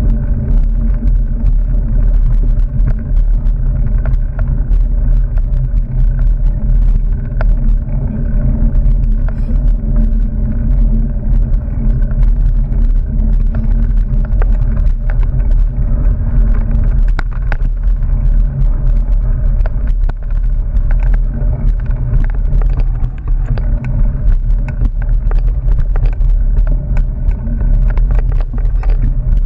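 Steady, muffled low rumble of wind and vibration on a camera riding a mountain bike down a dirt singletrack, with frequent small clicks and rattles as the bike jolts over the ground.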